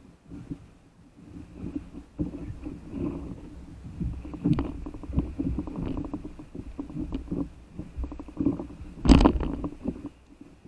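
Seawater sloshing and slapping against an inflatable paddle board close to the microphone, with irregular knocks and rustles as a person climbs onto the board and kneels. A louder thump comes about nine seconds in.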